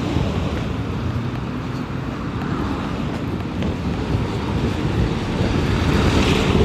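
Outdoor street noise: wind rumbling on the microphone over passing vehicle noise, which swells louder near the end as a vehicle goes by.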